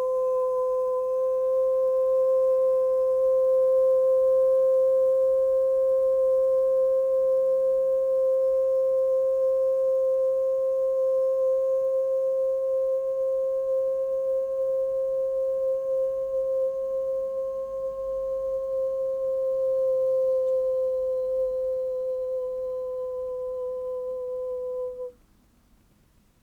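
A single steady, pure tone held for about 25 seconds, then stopping suddenly near the end.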